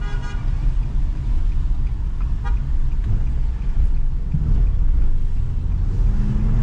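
A car horn toots briefly, heard from inside a moving car over steady road and engine rumble, with a second, shorter toot about two and a half seconds in.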